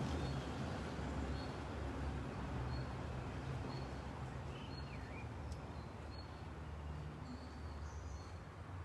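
Steady low background hum and noise, with faint, short high chirps repeating about once a second and one small up-and-down chirp about halfway through, like a bird calling.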